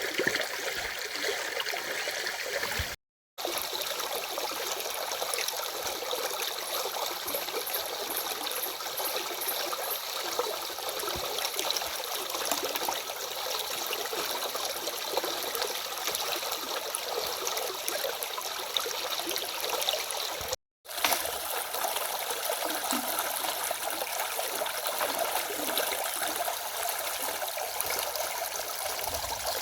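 Stream running steadily, an even rushing of water, broken twice by a split-second total dropout in the recording.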